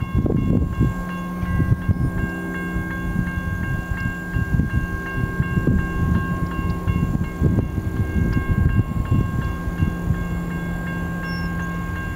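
Railroad grade-crossing bell ringing with quick, even strokes while the crossing gates lower, with a low steady hum and irregular low buffeting underneath.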